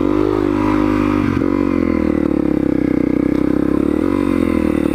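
Honda CRF250L single-cylinder dirt bike engine running at low revs in a low gear, its note rising and falling gently as the throttle is worked on slippery leaves and mud. There is a brief knock about a second and a half in.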